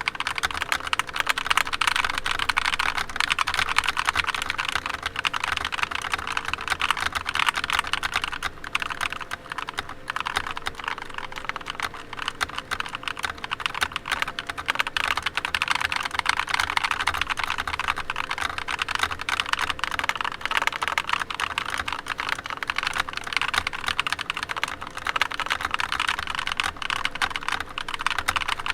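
Mechanical keyboard with stock, unlubed Akko CS Rose Red linear switches being typed on continuously: a dense, steady run of key clacks.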